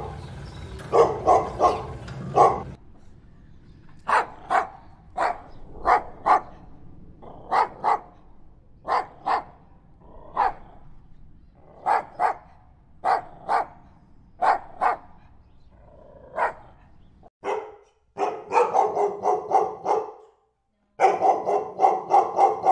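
Dog barking: short single and paired barks spaced about a second apart, then two runs of quick, continuous barking near the end, each cut off abruptly.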